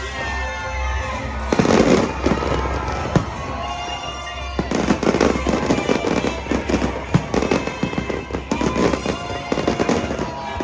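Aerial fireworks bursting and crackling, with a loud burst about two seconds in and dense rapid crackling through the second half, over background music.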